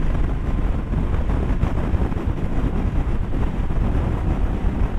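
Motorcycle on the move, engine running under steady wind buffeting the camera's microphone.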